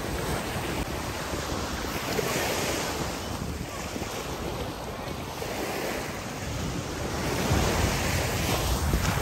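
Sea waves washing in at the shoreline in slow swells, louder near the end, with wind buffeting the microphone.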